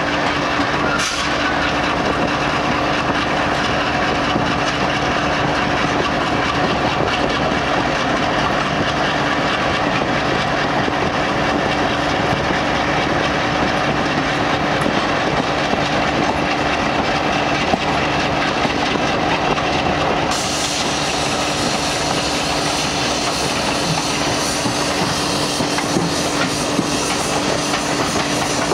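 Moving passenger train heard from aboard as it picks up speed: a steady rumble and clatter of wheels on the track with a constant low hum. About twenty seconds in the hiss turns suddenly brighter.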